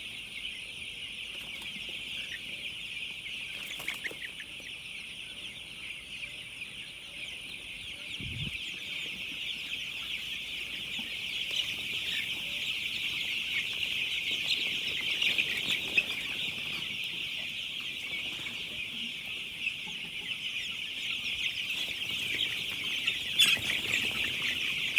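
A large flock of broiler chickens calling all at once: a dense, steady, high-pitched chatter of many birds that grows a little louder partway through.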